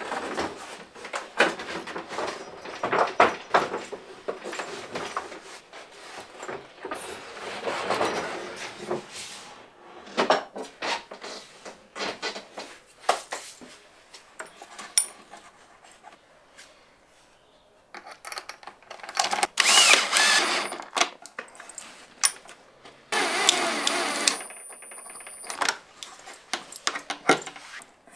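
Gas strut being fitted to a fold-down plywood workbench: clicks, knocks and rattles of bolts, nuts and an adjustable spanner against the wooden frame. Two louder noisy stretches of about two seconds each come about two-thirds of the way through.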